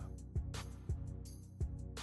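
Background music with a steady drum beat over sustained low notes.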